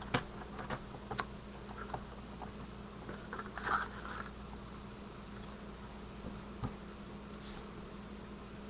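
Quiet handling and cutting of cardstock on a paper trimmer: a few light clicks at the start and a short scratchy rustle a few seconds in, over a steady low hum.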